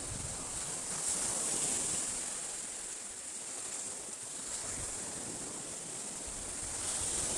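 Sea waves washing onto a rocky shore, swelling twice, with a steady high-pitched buzz over them.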